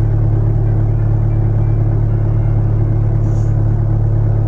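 Renault Mégane III dCi diesel engine idling steadily just after a cold start in hard frost, heard from inside the cabin as an even low rumble.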